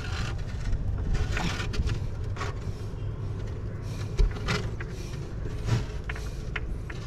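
Knocks, clicks and scrapes of a rope being handled against a fibreglass boat's gunwale, with a sharp thump about four seconds in, over a steady low rumble.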